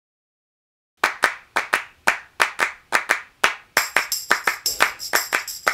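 Opening of a song: a steady rhythm of hand claps starts about a second in, and a jingling percussion joins them a little past halfway.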